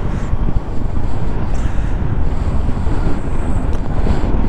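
Wind buffeting the microphone of a camera on a moving motorcycle, a steady low rumble, with the bike's engine running underneath.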